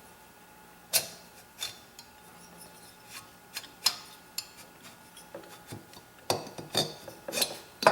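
Scattered light metallic clinks and taps of engine parts and tools being handled on a workbench, with several bunched together near the end.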